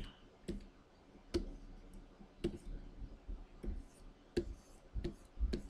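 About ten short, sharp clicks and taps at uneven intervals, from a stylus and keys at a pen-display drawing station.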